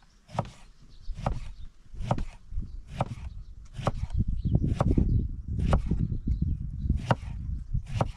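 Kitchen knife chopping eggplant on a thick wooden log-slice chopping board: a sharp knock of the blade on the wood about once a second, nine strokes in all. A low rumble sits under the middle few seconds.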